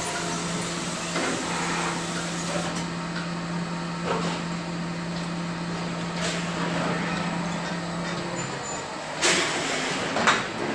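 Robotic milking machine at work: a steady machine hum that stops about eight and a half seconds in, a few light clicks, and a sharp burst of air hiss just after.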